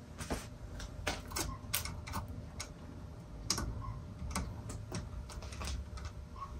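About a dozen light clicks and taps at irregular intervals, from small pieces of broken plastic being handled, over a low steady hum.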